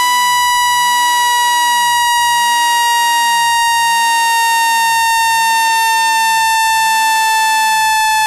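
Generated speaker-cleaning tone: a steady, loud, buzzy electronic tone rich in overtones that glides slowly lower in pitch, with faint ticks about every second and a half.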